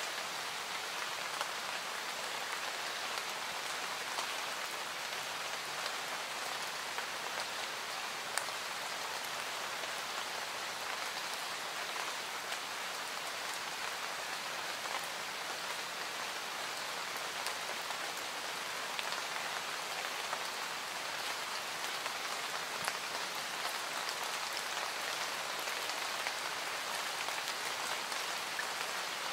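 Steady rain falling: an even hiss of rain on a surface, with a few faint drop ticks scattered through it.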